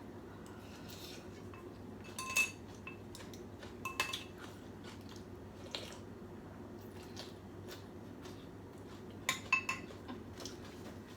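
Eating utensils clinking against a bowl of noodle soup: a handful of short separate clinks a second or two apart, with a quick cluster near the end.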